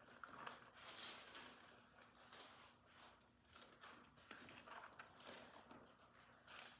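Near silence in a quiet room, with faint rustling of Bible pages being leafed through.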